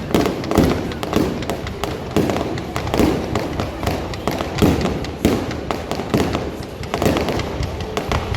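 An aerial fireworks display with a rapid run of booms, about two a second, each followed by crackling.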